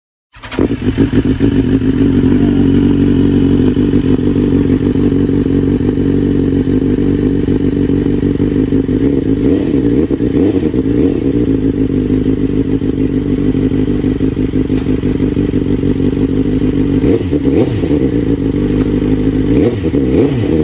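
BMW S 1000 R inline-four with an SC Project CR-T slip-on exhaust idling steadily. The throttle is blipped briefly about halfway through and twice near the end, the note rising and falling back.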